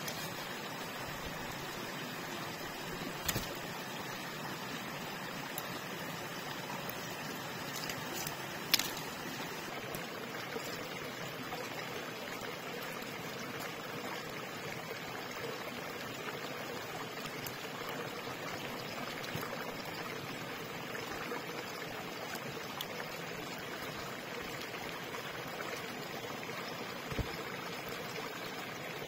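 Steady trickling water of a small stream, with three brief knocks, the loudest about nine seconds in.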